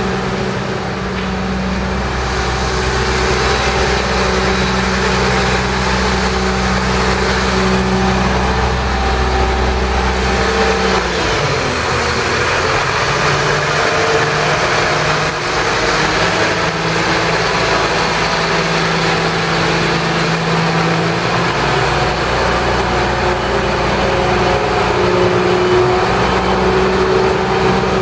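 Heavy vehicle engines running steadily at idle. A deep rumble fades out about eleven seconds in, leaving a higher, steady engine hum.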